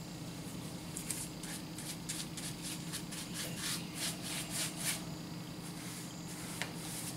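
A paintbrush stroking polyurethane onto bare wood: a quick run of short scratchy brush strokes, two or three a second, that stops about five seconds in.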